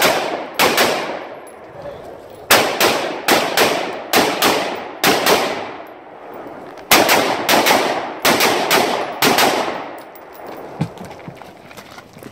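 Semi-automatic rifle firing about eighteen rounds in three strings, mostly as quick pairs, each shot echoing off the range. The firing stops near the end.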